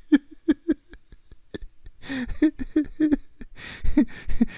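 A man laughing in short, quick bursts: three at first, then a run of several more about two seconds in.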